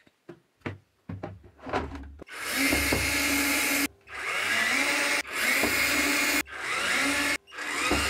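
12 V cordless drill driving screws into a plastic cover panel in about five runs of a second or so, the motor winding up in pitch at the start of several runs. A few handling clicks come before the first run.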